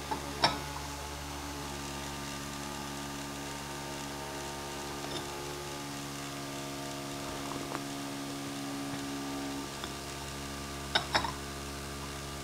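Small handheld fan's motor humming steadily with a whine of several steady tones. A porcelain teacup clinks on its saucer about half a second in, and clinks twice near the end as it is set back down.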